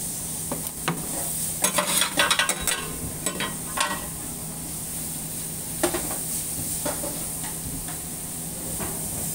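Oil sizzling on a hot stainless-steel flat-top teppan griddle, with a steady low hum underneath. A run of metal clicks and scrapes on the griddle comes in the first few seconds, and a few more follow later.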